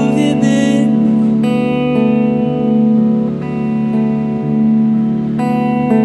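Clean electric guitar played through a small combo amp, slow chords ringing out and changing every few seconds. A held sung note fades out in the first second.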